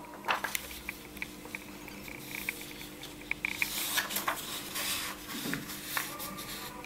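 A sheet of white paper being handled and folded by hand: rustling and sliding as it is smoothed flat on the table, with a few sharp crackles.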